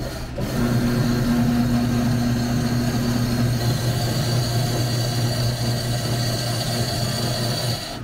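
Electric powder-ice shaving machine running, its motor giving a steady low hum as it shaves a block of frozen Jersey milk into a cup; it starts about half a second in and shuts off near the end.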